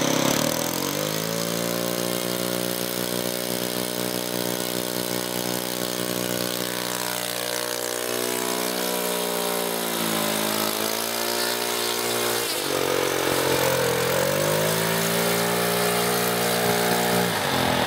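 The engine of a radio-controlled Ju 87 Stuka model, idling with the propeller turning. Its pitch falls and settles in the first second, wavers down and back up a few times in the middle, and drops again near the end.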